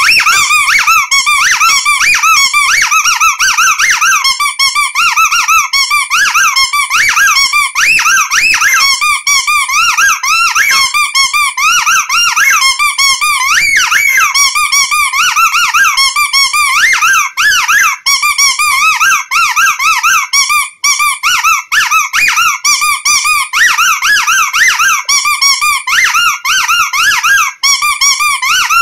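Rubber squeaky toy squeezed over and over in quick succession, giving high squeaks that waver in pitch, with only brief pauses between them.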